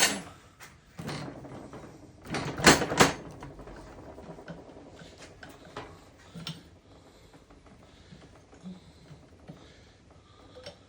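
Metal hand tools and parts clanking in a workshop: a loud clank right at the start, a cluster of knocks between about two and three seconds in, then lighter taps and rattles.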